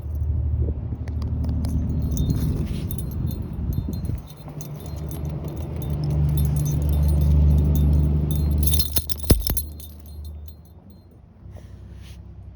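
A motor running with a loud, steady low hum, with metallic jingling over it. A sharp click comes about nine seconds in, and the hum then dies away.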